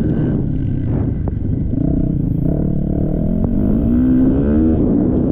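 Motocross bike engine revving, its pitch climbing from about two seconds in until near the end as the bike accelerates, over a constant low rumble.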